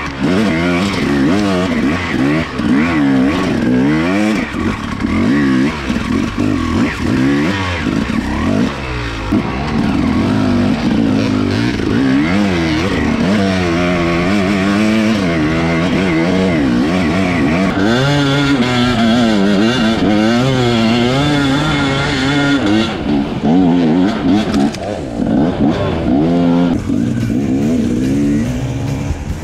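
Enduro dirt bike engine being ridden hard off-road, its pitch rising and falling over and over as the throttle is opened and closed.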